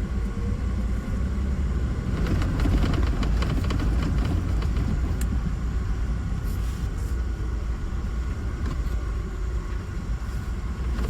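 Mahindra Bolero Neo on the move, heard from inside the cabin: steady road and engine rumble with a cluster of sharp tak-tak clicks from the left-hand door a couple of seconds in, and a few more later. The knocking comes from a connector inside the door panel touching the door body.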